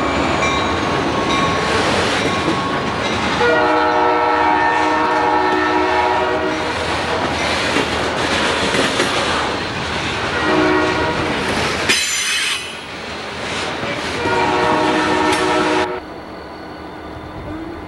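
Diesel freight train rolling past close by, its engines and wheels making a steady rumble, while a locomotive's multi-note horn sounds a long blast, a short one and another long one. A brief high-pitched squeal comes about twelve seconds in. The sound drops to quieter, distant rail-yard noise near the end.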